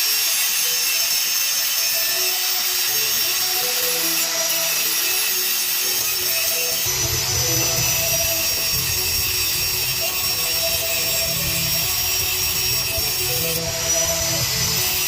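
Background music with a stepping melody; a bass line joins about seven seconds in. Under it runs a steady hiss.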